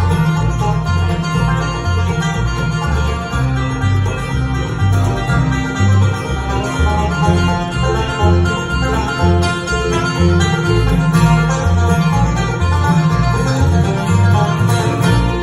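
Live bluegrass band playing an instrumental passage: banjo rolls, fiddle, flat-picked acoustic guitar and mandolin over an upright bass stepping from note to note about twice a second.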